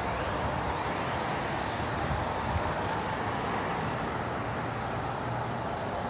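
Steady outdoor ambient noise with a low hum of distant traffic, and a couple of faint high chirps in the first second.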